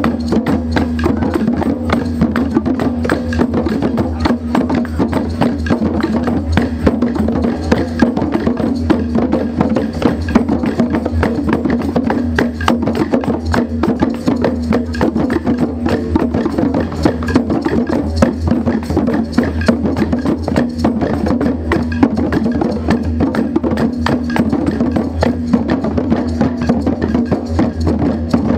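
An ensemble of djembe drums played by hand together, a dense, unbroken stream of strikes.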